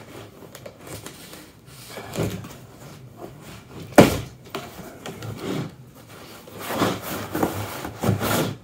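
Cardboard box being handled and pulled across a table: flaps rubbing and scraping, with one sharp knock about four seconds in and a longer run of scraping near the end as the box is lifted aside.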